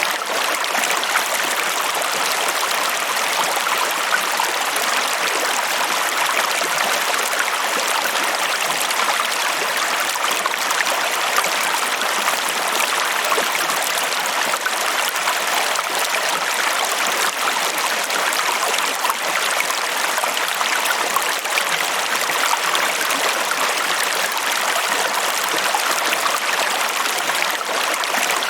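Water flowing steadily over rocks in a stream, a constant splashing rush with small trickles and gurgles.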